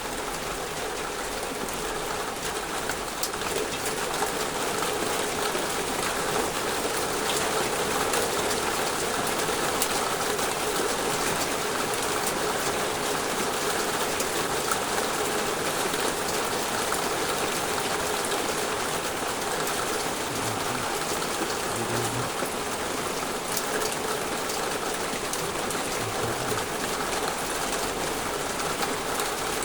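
Heavy rain pouring down steadily, a dense patter of drops.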